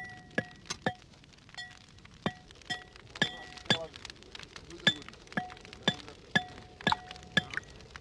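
Repeated ringing metal clinks from brass coffee-making utensils, two or three a second at an uneven pace, each strike ringing with the same bright tone.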